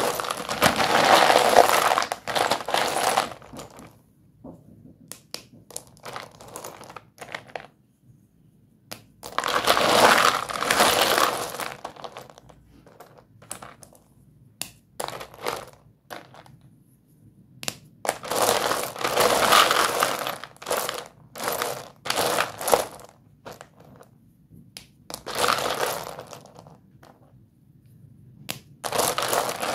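Doms white dustless school chalk sticks crunching and crumbling under hands in a heap of chalk pieces. Bursts of dense crackling a few seconds long come several times, with scattered sharp snaps and clicks between them.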